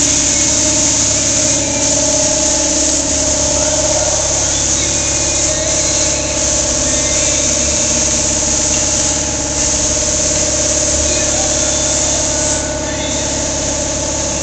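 Steady hiss of compressed air over a constant machine hum: spray-painting air equipment running.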